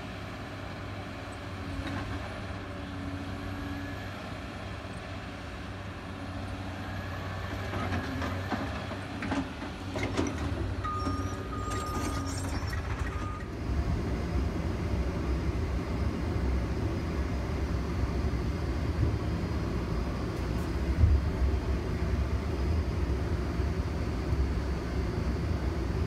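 Tracked excavator's diesel engine running steadily, with several clanks around the middle and a brief steady tone. About halfway through, a louder, rougher low rumble takes over.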